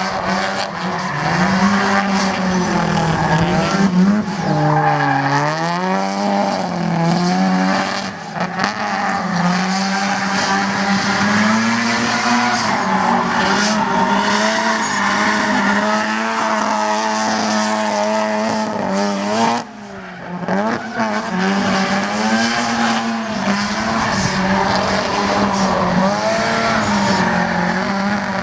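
Drift car engine held at high revs, its pitch swinging up and down as the driver works the throttle, with tyres squealing through a slide. The engine briefly lets off about two-thirds of the way through, then picks up again.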